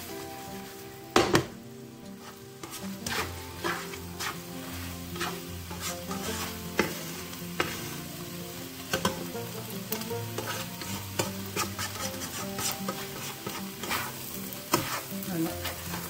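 Noodles and chicken sizzling in a nonstick frying pan while being stir-fried, with a spatula scraping and clicking against the pan over and over. There is a loud knock a little over a second in.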